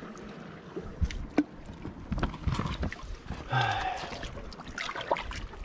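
Footsteps splashing and sloshing through shallow tide-pool water over rock, with scattered sharp clicks and knocks. A brief low voice sound comes about three and a half seconds in.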